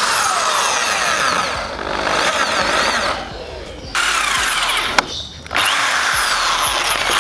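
Electric drill with a 4.5 mm bit boring through a steel scooter handlebar tube, widening a 3.5 mm hole. It runs in three stretches, easing off twice briefly.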